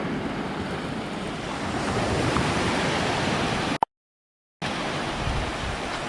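Sea waves washing on the shore, a steady rush of surf. It drops out to dead silence for under a second just before the four-second mark, then resumes.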